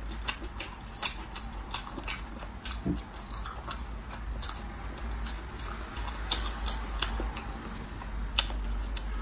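Eating sauced whole baby chicks: wet chewing and lip smacking, with many short sharp mouth clicks scattered through.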